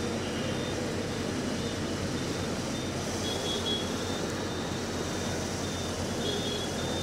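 Steady noise of traffic driving through flood water: a vehicle's engine running with water sloshing and splashing under the wheels, heard from inside the vehicle. Faint short high beeps repeat throughout.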